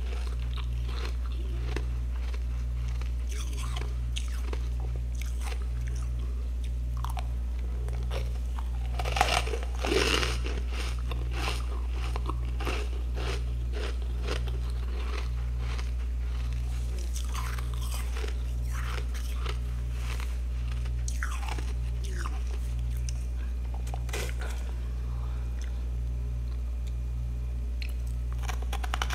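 A person biting and chewing crunchy clumps of freezer frost, with irregular crunches throughout and a louder run of bites about nine to eleven seconds in. A steady low hum runs underneath.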